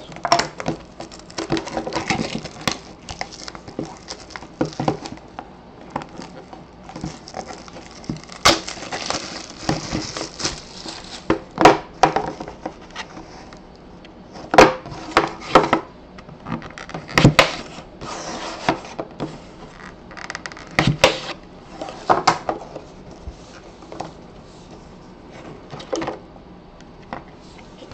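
A shrink-wrapped cardboard trading-card box being cut open and unwrapped by hand: a knife scratching through the plastic seal, plastic wrap crinkling about 8 to 11 seconds in, and scattered sharp taps and knocks of the box and knife against the table.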